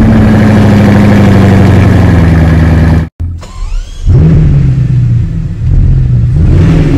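Bugatti Chiron's quad-turbo W16 engine running steadily, then cutting off abruptly about three seconds in. After a short lull it runs again with a few brief rises and falls in revs.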